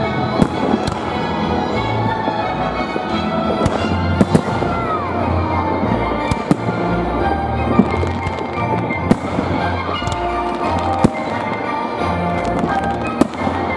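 New Year fireworks display: aerial shells bursting overhead with sharp bangs every second or two, over steady music.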